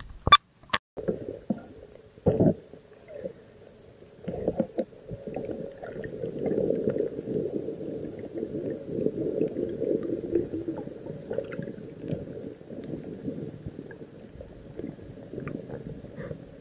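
Muffled underwater sound heard by a camera held below the surface: a low, rumbling churn of water moving, after a few sharp knocks in the first couple of seconds as it goes under.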